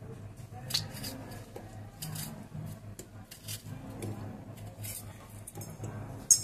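Knife slicing a tomato held in the hand, pieces dropping into a stainless-steel mixer jar: a series of short crisp cuts and soft drops, with one sharp metallic clink near the end.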